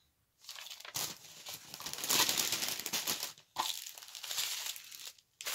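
Small plastic sachets of diamond painting drills crinkling and rustling as they are picked up, handled and sorted, with a few sharper clicks.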